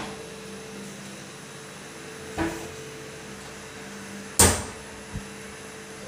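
Aluminium-profile kitchen cabinet door being swung and knocking shut against its frame: a knock about two seconds in, a louder one about four seconds in, then a light tap.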